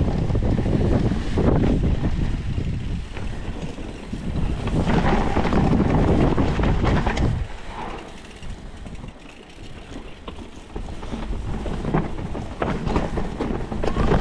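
Wind noise on a mountain biker's camera, with the tyres rolling over a dirt trail and the bike rattling over rocks and roots. The noise drops about halfway through, then builds again.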